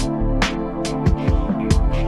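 Background music with a drum beat over sustained bass and pitched notes.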